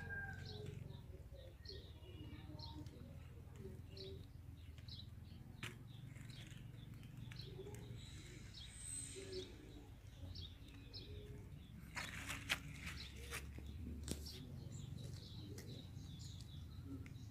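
Quiet outdoor background with small birds chirping now and then. There are a few short rustling clicks, with a cluster of them about twelve seconds in.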